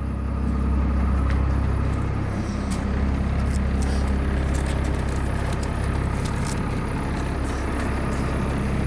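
1996 Blue Bird bus engine running steadily, warming up just after being started from cold after sitting for about three weeks.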